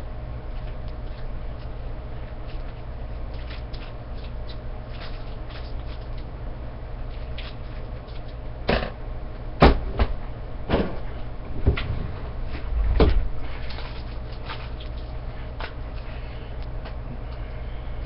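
Wooden desk drawer being rummaged in and pushed shut: a cluster of about five knocks and thuds around the middle, the second one the loudest, over a steady low hum.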